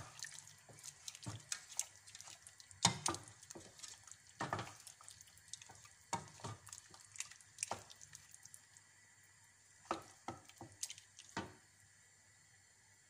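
Wooden spoon stirring a thick milky stew of chicken and potatoes in a stainless steel pot: irregular wet slaps and knocks of the spoon against the pot and chunks. The stirring stops about a second and a half before the end.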